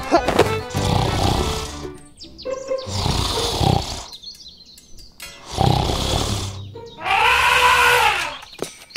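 Background music with animal-call sound effects: a few short roaring calls, then a long call near the end that rises and falls in pitch.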